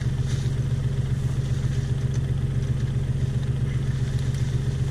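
Tractor's diesel engine idling steadily, a low even hum with a fast regular pulse.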